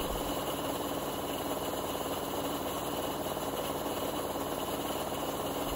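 Old Compak belt-driven air compressor running steadily with a fast even pulsing, building tank pressure painfully slowly. Most of the noise comes from the electric motor's completely shot bearings, and the belts are slipping on a worn pulley.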